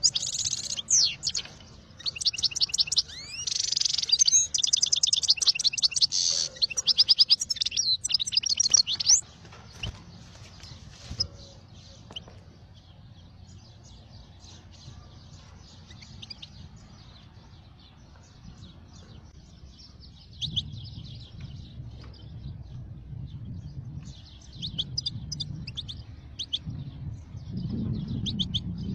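Small birds chirping in rapid, high trills, loud and dense for the first nine seconds or so, then fainter and sparser, and busier again in the last few seconds. A steady low rumble runs underneath.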